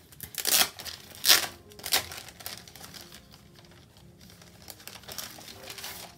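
Clear plastic planner covers crinkling and rustling as they are handled and slid against each other. There are a few louder crackles in the first two seconds, then softer rustling.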